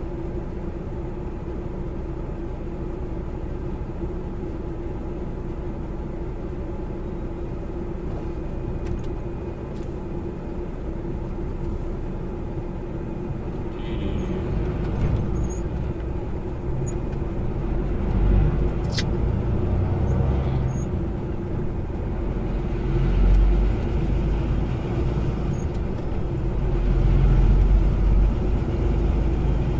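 Semi-truck driving, heard from inside the cab: steady engine and road noise with a constant hum. From about halfway the low rumble grows louder and uneven, and there is a single sharp click about two-thirds in.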